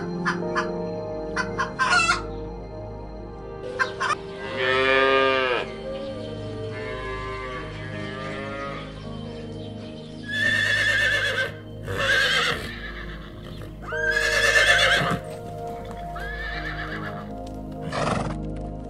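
A run of farm-animal calls over steady background music: a rooster crowing about five seconds in, then cattle calling three times, and a short call from a horse near the end.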